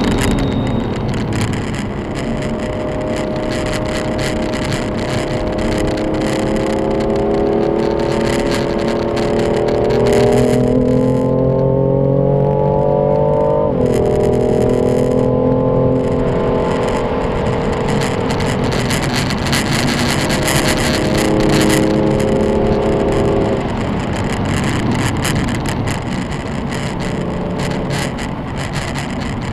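Car engine under load, its note climbing slowly for about twelve seconds, then dropping sharply around fourteen seconds in, as on an upshift. It then holds steadier and eases off after about twenty-four seconds, over constant wind and road noise.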